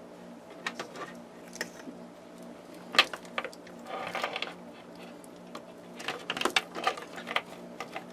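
A wiring harness and its fuses being worked into a switch box by hand: scattered clicks and short rattles, the sharpest about three seconds in and a cluster near the end, over a faint steady low hum.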